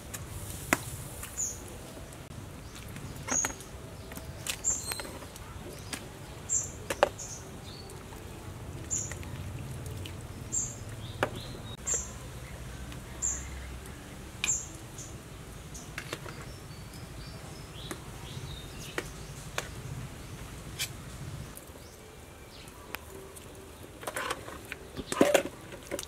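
A bird giving a short, high chirp about every second and a half for the first half, then falling silent, over scattered clinks and knocks of a spoon and food against a steel cooking pot, with a cluster of clinks near the end.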